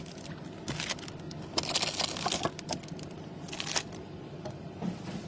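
Crinkling and crackling of foil card-pack wrappers and packaging being handled and torn open, in short bursts of clicks with pauses between.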